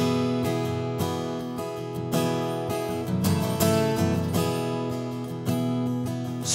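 Instrumental passage of a song: an acoustic guitar strummed in chords, with held notes sounding beneath.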